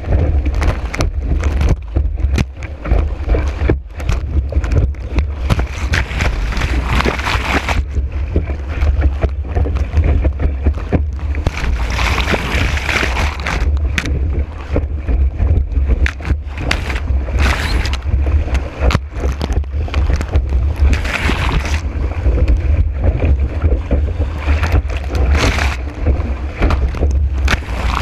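Kiteboard planing fast across choppy water in high wind: a constant low rumble of wind buffeting the board-mounted microphone, hissing spray, and frequent sharp slaps as the board hits the chop.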